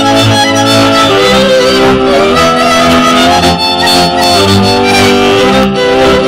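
Transylvanian Mezőség folk dance music from a string band: a fiddle plays the melody over sustained chords and a pulsing bass, and the chords change about once a second.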